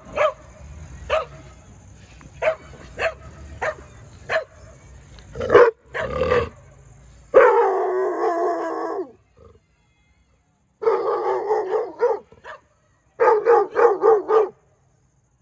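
Pit bull howling: three long drawn-out howls in the second half, the last one wavering in pulses, after a run of short sharp sounds in the first few seconds.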